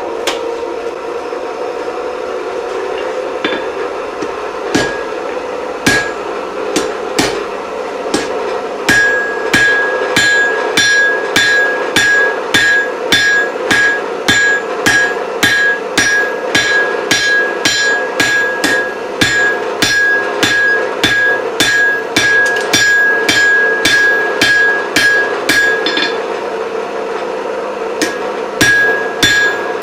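Blacksmith's hand hammer striking hot iron on an anvil to forge a chisel. A few scattered blows come first, then a steady run of about two to three blows a second with a bright anvil ring. The blows pause briefly near the end, then start again.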